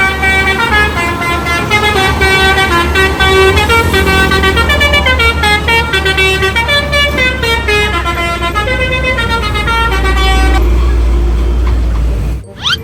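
Bus 'telolet' multi-tone horn playing a melody of many short stepping notes over the low rumble of the bus's engine. The horn stops about ten seconds in, the engine runs on louder, and the sound cuts off suddenly near the end.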